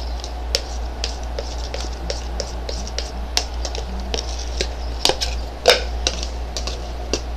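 Hands kneading and pressing slime: irregular small clicks and pops, a few sharper ones about five seconds in.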